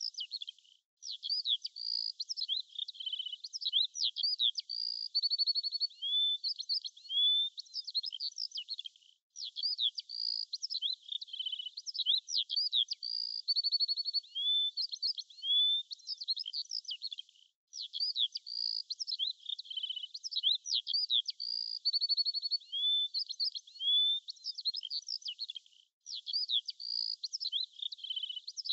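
Looped birdsong recording: high chirps, whistled slurs and a fast trill that repeat in the same order about every eight seconds, with a brief silent gap between repeats.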